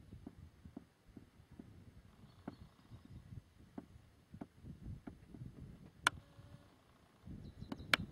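Wind rumbling unevenly on the camera's microphone, gusting up near the end, with scattered light handling clicks and two sharp clicks, one about six seconds in and one near the end.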